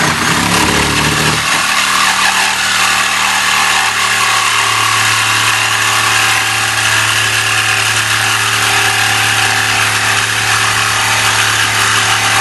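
Cordless power saw cutting through the steel chassis rail of a VW Kombi: a loud, continuous rasp of blade on metal over the motor's hum, which settles to a steady pitch about a second and a half in.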